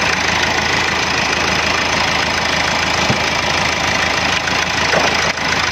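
Hyundai Accent's four-cylinder common-rail diesel engine idling steadily with the bonnet open, the fuel knock it had been showing now gone after the EGR cleaning.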